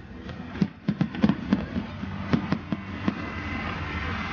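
Display fireworks: aerial shells bursting in a rapid, irregular string of sharp bangs, several a second for about two seconds, then thinning out.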